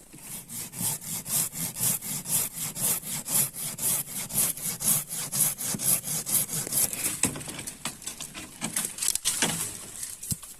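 Hand saw cutting through a green mimosa pole in quick, even back-and-forth strokes, stopping shortly before the end.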